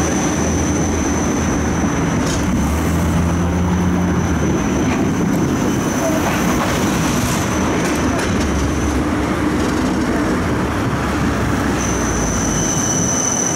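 Inside a Siemens Combino low-floor tram under way: steady running noise of wheels on rail and the drive, with a low hum in the first few seconds. A thin, high, steady whine runs over it, dropping out for a few seconds past the middle.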